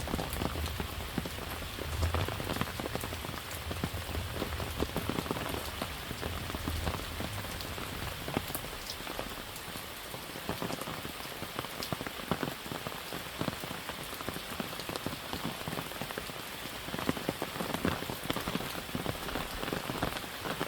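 Steady rain falling on a garden, with many separate drops tapping sharply on an umbrella overhead.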